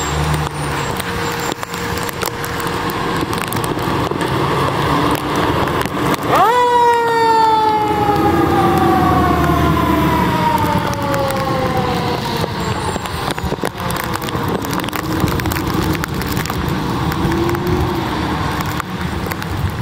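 A fire engine's mechanical siren spins up sharply about six seconds in, then winds down in one long falling wail over several seconds. Under it the truck's engine runs and its tyres hiss on the wet road.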